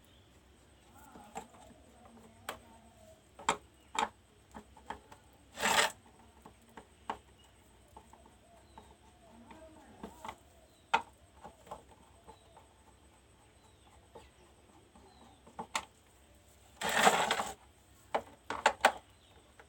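Scattered clicks and knocks of hands and tools handling objects, with two short rasping scrapes, one about six seconds in and a longer one near 17 s, and a quick run of clicks near the end.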